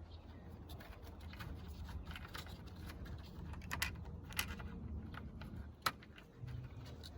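Scattered light clicks and taps of a small 10mm bolt being handled and offered up to the radiator's mounting point, with one sharp click about six seconds in. A steady low hum runs underneath.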